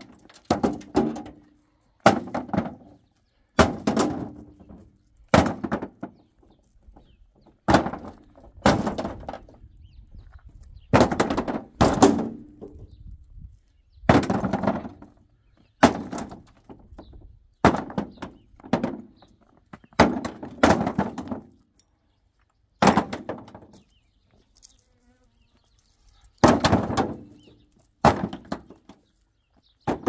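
Stones being thrown into a tractor trailer's bed, each landing with a clattering thud and a short ring, about one every one to two seconds, with a pause of a few seconds late on.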